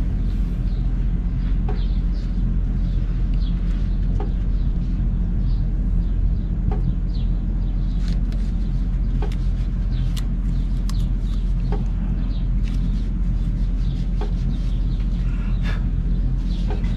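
A steady low machine hum, with short chirps and light clicks scattered over it.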